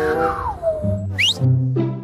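Playful background music with low bass and brass-like notes. A whistle-like tone slides downward through the first second, and a quick rising swoop comes about a second later.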